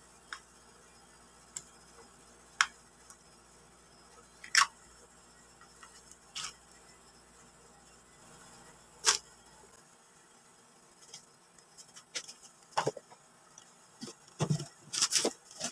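Objects being handled on a tabletop: scattered sharp clicks and taps a second or two apart, turning into a busier cluster of knocks and rustling near the end.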